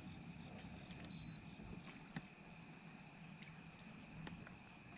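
Faint, steady chorus of insects, a high even buzz.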